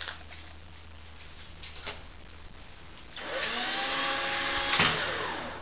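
A few light clicks from the door's control box, then the cordless drill that powers the automatic coop door starts about three seconds in. Its motor spins up to a steady whine, runs for about two seconds, gives a sharp click and winds down.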